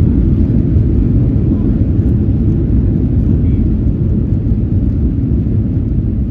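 Airliner cabin noise: a loud, steady low rumble of the jet engines and airflow during flight.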